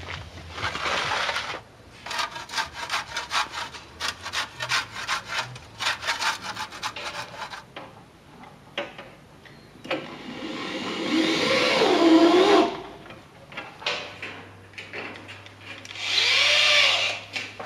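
A quick run of rasping, sawing-like strokes, then a cordless drill runs twice, working into a window frame. Its whine rises and falls in pitch on the first longer run, and the second burst is shorter.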